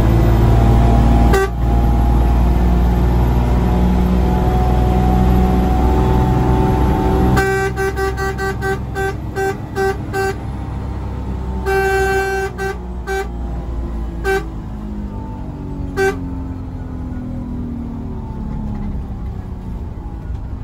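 Diesel bus engine pulling hard, heard from inside the cab, easing off after about seven seconds. A horn then sounds in a quick series of short toots, followed by a longer blast and a few single toots, all on one pitch.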